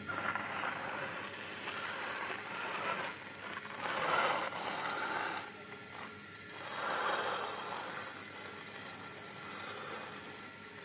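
Toy RC tractor's small motor and plastic gearbox whirring and grinding as it tows a sand-loaded trailer over sand, the tyres scraping through the sand. It swells louder about four and seven seconds in and fades toward the end.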